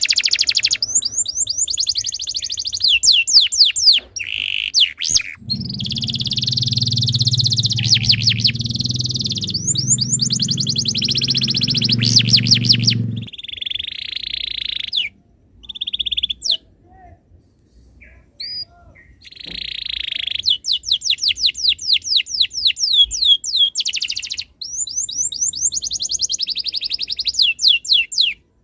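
Canary singing long phrases of rapid trills and buzzy rolls, broken by short pauses and a longer lull about halfway through. A low hum sounds underneath for several seconds near the start.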